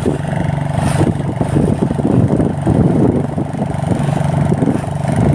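Motorboat engine running steadily, a constant low hum with irregular rushing noise over it.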